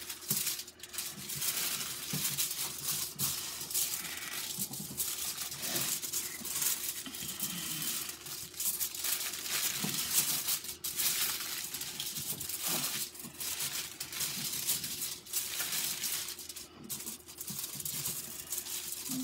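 Hands kneading bread dough on a sheet of aluminum foil: irregular crinkling and rustling of the foil, with a faint steady hum underneath.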